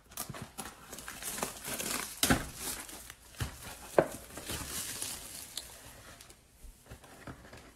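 Plastic shrink wrap being torn and crumpled off a cardboard Optic trading-card mega box, crackling irregularly, with a couple of sharp knocks as the box is handled. It quietens near the end.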